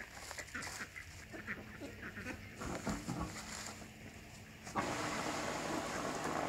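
Ducks quacking and honking; then, about three-quarters of the way in, a steady rush of water starts suddenly as the submerged 310-watt VivoSun pond pump pushes water out through the waterfall.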